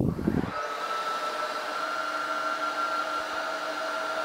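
Tineco Floor One S7 Steam cordless wet-dry floor washer starting up in automatic mode. A brief low rumble comes at the start, then the suction motor spins up within about half a second and runs with a steady whine.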